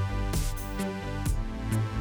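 Background electronic music with a steady drum-machine beat and bass.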